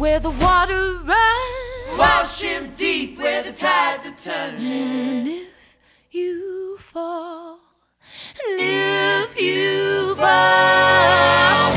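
Background song with singing voices, mostly unaccompanied. It breaks off briefly about six seconds in and again about eight seconds in.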